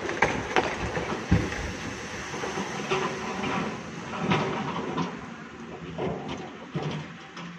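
Loose rock and rubble pouring down a quarry cliff face into water: a rough, rumbling clatter with scattered sharp knocks.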